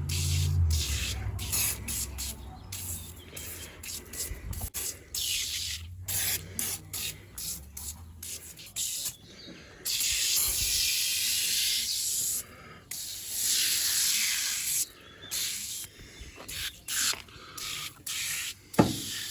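Degreaser sprayed from a spray bottle in many quick bursts, with a few longer sprays of a second or more, as the cleaner is applied to greasy parts. A sharp thump comes near the end.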